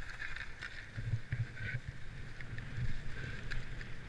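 Skis sliding and scraping over hard-packed groomed snow during a downhill run, with wind rumbling on the microphone.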